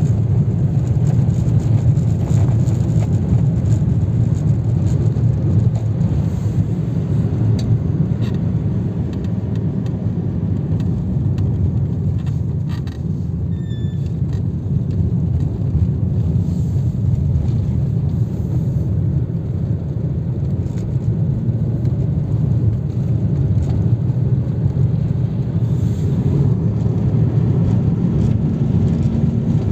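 Car driving, heard from inside the cabin: a steady low rumble of engine and road noise, with the engine note rising slowly near the end.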